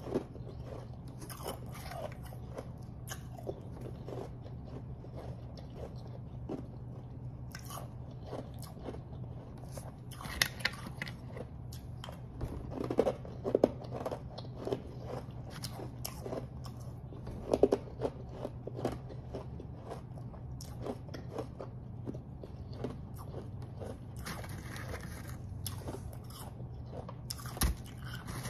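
Close-miked biting and chewing of refrozen powdery snow ice: scattered sharp crunches throughout, with the loudest clusters about ten to eighteen seconds in, over a steady low hum. Near the end, a hand digs into the ice pile with a crunching rustle.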